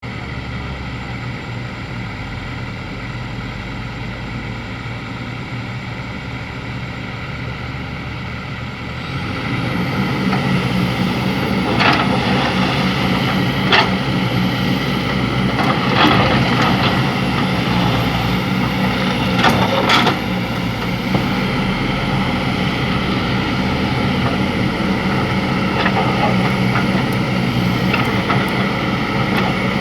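Excavator engine running steadily, growing louder about nine seconds in, with a few sharp knocks scattered through the middle.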